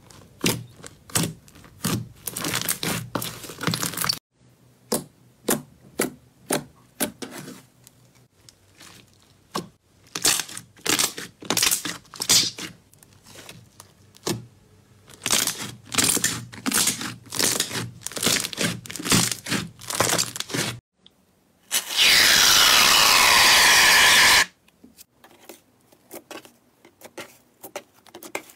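Hands pressing and squishing thick slime, making rapid, irregular clicking and popping crackles. About three-quarters through, a loud steady crackling hiss lasts about two and a half seconds, then stops suddenly.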